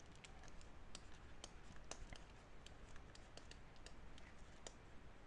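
Faint, irregular clicks and taps of a stylus writing on a tablet screen.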